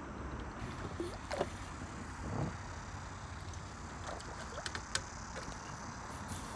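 Light water splashing and a few soft knocks as a hooked crucian carp is drawn in at the surface, over a steady low background rumble.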